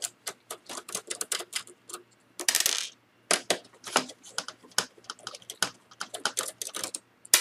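Small ratchet screwdriver clicking in quick, uneven runs as it backs out the screws beside a laptop's VGA port, with a short scraping rush about two and a half seconds in.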